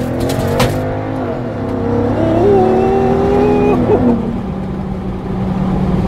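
BMW X5's V8 engine heard from inside the cabin, pulling under acceleration: its note climbs, steps up and holds, then drops away about four seconds in as it eases off.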